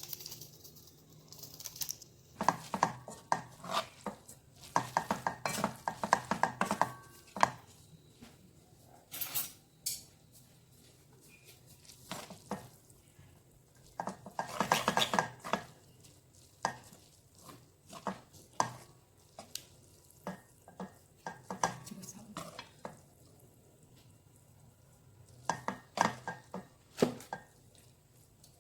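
Metal utensils stirring and scraping in a pot or pan, clattering in short spells with pauses between.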